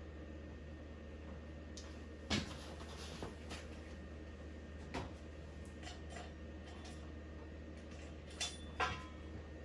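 A few sharp metallic clinks and knocks of engine parts and tools being handled, about four in all, the last ringing briefly, over a low steady hum.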